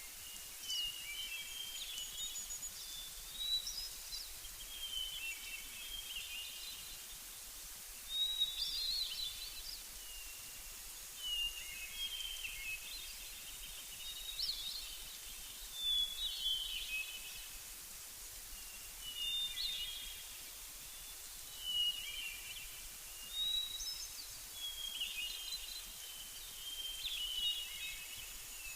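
Songbird singing short, warbled phrases that repeat every few seconds over a steady background hiss.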